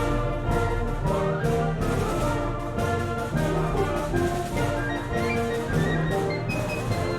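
Concert wind band playing a joyous piece: brass and woodwinds in sustained chords that move in steps, with timpani and percussion underneath.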